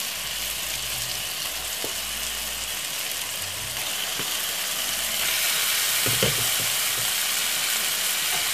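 Seasoned chicken pieces frying in a pan with a steady sizzling hiss that grows a little louder about halfway through, with a few soft knocks.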